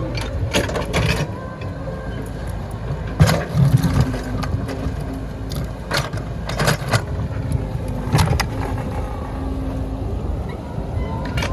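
Excavator working at a large rock: a steady machine rumble with an on-and-off whine underneath, broken by a series of sharp knocks and scrapes, the loudest a little over three seconds in.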